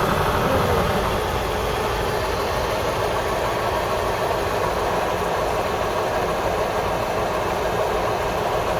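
KAMAZ fuel truck's diesel engine and road noise, heard from inside the cab while driving: a steady, even rumble.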